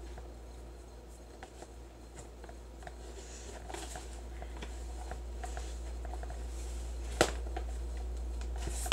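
Hands squeezing and packing crumbly moon sand made of flour and baby oil in a plastic tub: soft rustling with many small scattered ticks, and one sharper click about seven seconds in, over a low steady hum.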